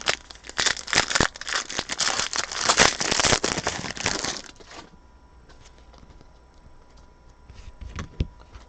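A foil trading-card pack wrapper being torn open and crinkled for about the first five seconds, then quieter, with a few light clicks of cards being handled near the end.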